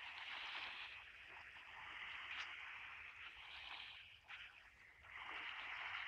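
Small waves lapping on a sandy shore of a calm sea: a faint hiss of water that swells and fades every couple of seconds.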